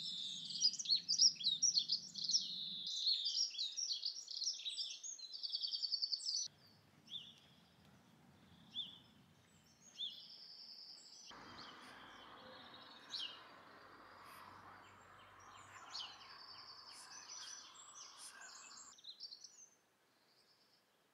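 Songbirds singing: a busy mix of chirps and warbles for about the first six seconds, including a fast trill, then fewer, scattered calls over a faint steady rushing noise, stopping shortly before the end.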